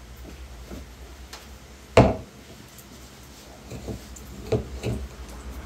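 Clunks and knocks from a plastic mannequin being handled as trousers are pulled onto its legs: one sharp knock about two seconds in, then a few lighter bumps near the end, over a low steady hum.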